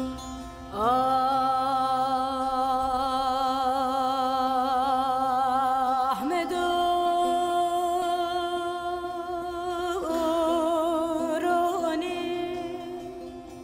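Music: a slow, unmetred melody of three long held notes with wide vibrato, each new note entered by a glide in pitch, over a steady drone. It sounds like a singing voice.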